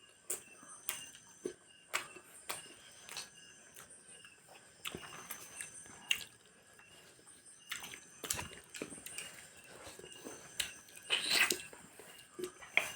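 Eating sounds: irregular soft clicks and crunches of biting and chewing, with a slightly louder burst about eleven seconds in.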